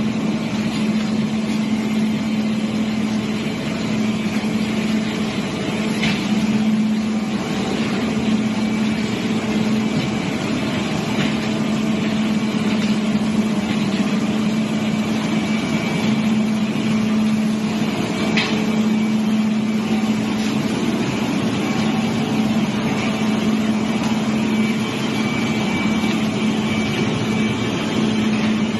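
Drum wood chipper running, a steady loud hum over a dense mechanical noise, with a few sharp cracks along the way.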